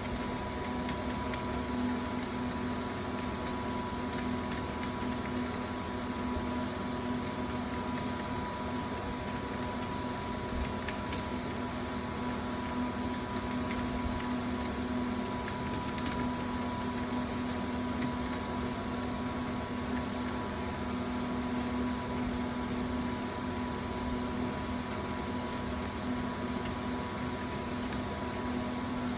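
Steady machine hum with an even hiss, holding a constant low tone and a fainter higher tone without change.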